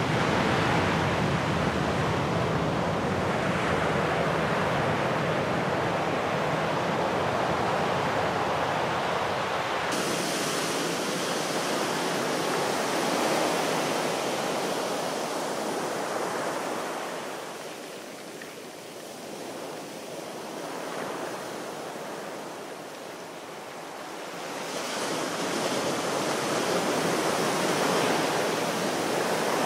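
Sea waves washing on a shore: a steady rush of surf that brightens suddenly about ten seconds in, eases off after the middle and swells again near the end.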